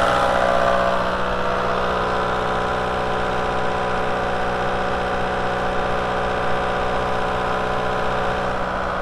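VW 1.9 L ALH TDI four-cylinder turbodiesel engine running steadily, warmed up to the point where its new thermostat has opened.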